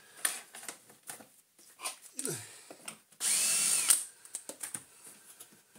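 Cordless drill-driver run once for under a second, about three seconds in, turning a screw in the vacuum's motor housing; its motor whine rises and falls in pitch. Light clicks and knocks of plastic parts being handled come before and after.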